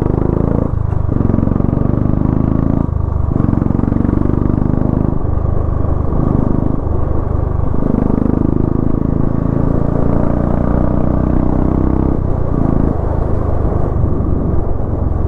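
Royal Enfield single-cylinder motorcycle engine and exhaust running under way, heard from the saddle, its note rising and falling and dipping briefly several times. The rider says this exhaust is loud and misfires a lot.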